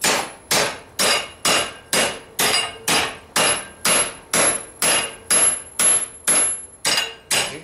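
Hand hammer striking a red-hot railroad spike clamped in a vise, in a steady rhythm of about two blows a second, each blow with a short metallic ring. The smith is bending the spike to a sharper angle.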